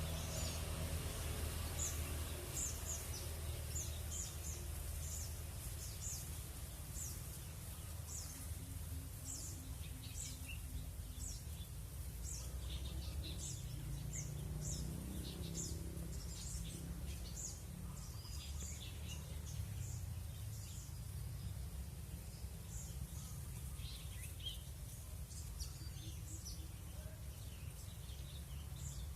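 Many small wild birds chirping and calling back and forth, a dense scatter of short high chirps and quick trills, over a steady low rumble.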